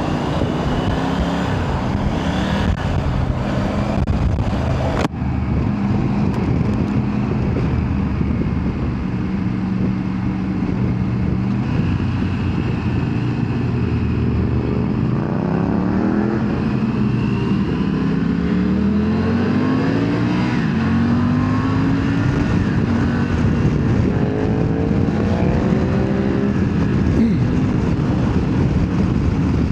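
Motorcycle engine running on the road, its pitch climbing and dropping again and again as it accelerates and eases off, over a steady rush of road and wind noise.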